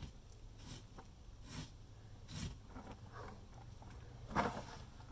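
A rubber-gloved hand pressing and smoothing runny, wet stucco patch into a hole in a stucco wall, making a few brief scraping, smearing strokes, the loudest near the end.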